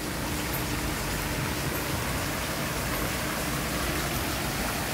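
Small artificial waterfall in a water-park pool: a steady rush of falling water splashing.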